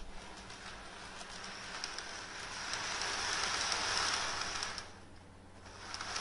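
Motorized N-gauge model train running on the track: a steady rolling rattle of small wheels on rail with a high whine, getting louder as it comes closer to a peak about four seconds in. It drops away sharply around five seconds, then rises again near the end.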